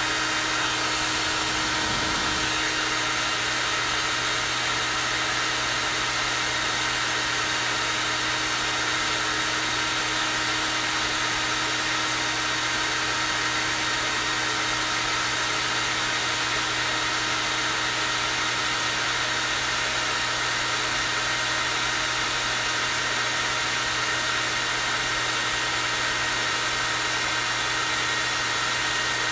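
Hair dryer running steadily on its high setting: a constant rush of air with the motor's steady hum and a high-pitched whine.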